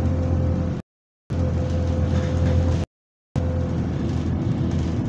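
Bus engine running under way, heard inside the saloon: a steady low drone with a steady mid-pitched whine over it, a moany engine with what is taken for a burst turbo. The sound drops out completely twice, for about half a second each time.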